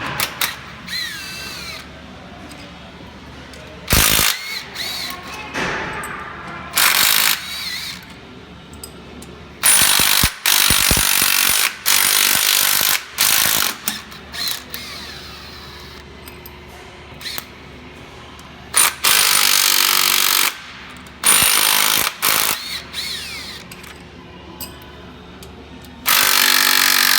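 A power tool run in repeated bursts of one to two seconds each, spinning bolts out during oil pump removal, with quieter gaps between the bursts.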